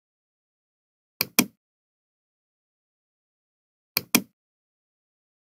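Computer mouse clicks in two pairs, each a press and release about a fifth of a second apart: one pair about a second in and another near four seconds, with dead silence between.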